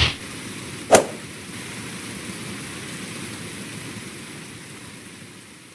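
Steady outdoor hiss, with two short, loud bursts right at the start and about a second in, then slowly fading out near the end.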